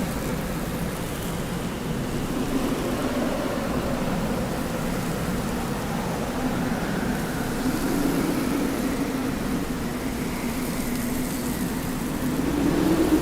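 Desert wind blowing steadily, with a low moaning tone that drifts slowly in pitch and swells a little near the end.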